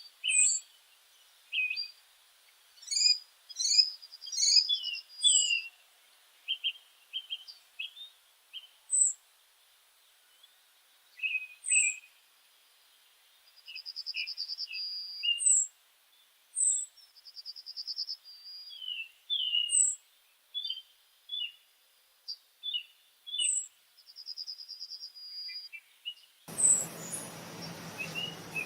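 Several small birds calling: short high chirps, repeated sharp downslurred notes and a few brief buzzy trills. About 26 s in, the sound changes to a steady hiss with a low hum, with a chirp or two over it.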